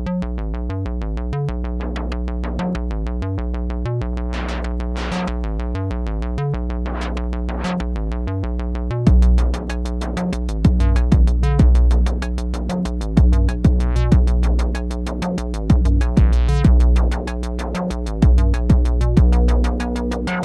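Eurorack modular synthesizer patch built around a Tenderfoot Electronics Source analog VCO and Confluence wave mixer: a repeating sequence of synth notes over a deep bass. Louder percussive hits come in on a steady rhythm about nine seconds in.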